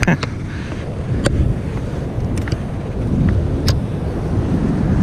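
Wind buffeting the microphone over the low, steady rumble of ocean surf, with a few sharp clicks.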